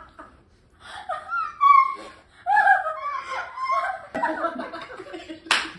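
Several people laughing together in high-pitched bursts of giggles and snickers. A single short, sharp sound comes near the end.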